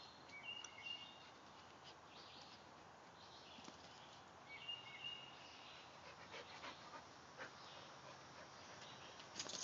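Faint, quiet sound of two dogs playing over a plush toy on a wooden deck: light scuffles and clicks, with a brief high thin call twice, about a second in and again about five seconds in.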